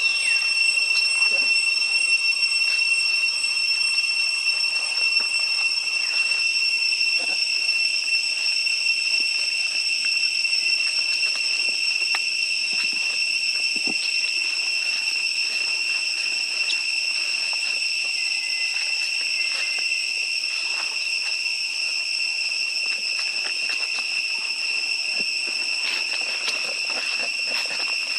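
Steady, high-pitched insect drone, one unbroken whine with a fainter higher overtone, with scattered faint clicks and rustles beneath it.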